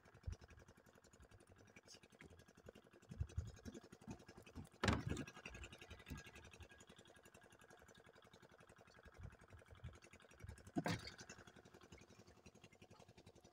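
Mesh net fish trap being handled in a small boat: faint handling sounds, with two sharp knocks about six seconds apart.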